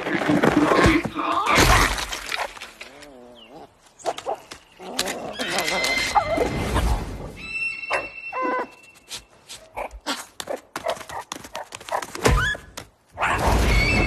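A busy edited mix of short sharp clicks and knocks, a wobbling tone about three seconds in, and high squeaky whistling tones around the middle and near the end, over music.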